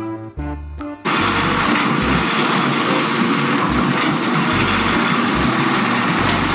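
After about a second of light background music, an automated side-loader garbage truck runs loudly and steadily while its hydraulic arm lifts a wheeled bin to tip it into the hopper.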